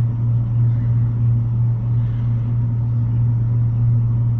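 Steady low hum with a rumble underneath, unchanging throughout.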